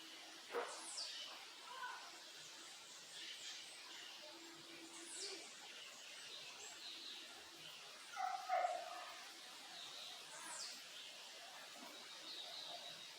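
Backyard birds calling and singing, several birds at once, with a high falling whistle that repeats about every five seconds. A louder, lower-pitched sound comes about eight seconds in.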